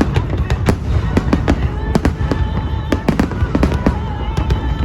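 Fireworks going off in quick succession: a dense string of sharp bangs and crackles, several a second, over a steady low rumble.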